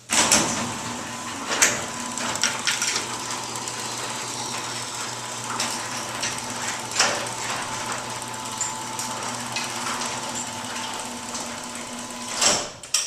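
Electric garage door opener lowering the main sectional garage door, the rollers rattling along the steel track over a steady motor hum, with scattered clacks. It starts abruptly and ends with a louder clunk about twelve and a half seconds in as the door closes and the opener stops.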